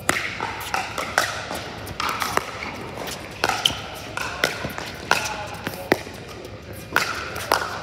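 Pickleball rally: paddles striking a hard plastic pickleball back and forth, a dozen or so sharp pocks about half a second to a second apart, echoing in a large indoor hall.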